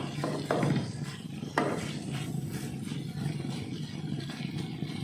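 Sliced onions sizzling as they fry in oil and spice paste in a granite-coated wok, stirred and scraped with a wooden spatula. There are a couple of sharper scrapes about half a second and a second and a half in.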